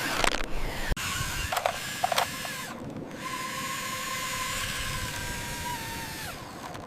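Small electric motor and gears of a radio-controlled toy vehicle whining, with a few clicks and knocks. The whine then holds steady for about three seconds before dropping in pitch and stopping near the end.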